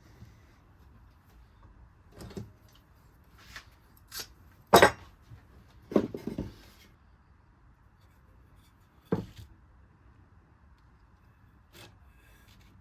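A few separate knocks and clacks of objects being handled and set down, irregularly spaced. The loudest comes about five seconds in, followed by a quick run of clacks around six seconds.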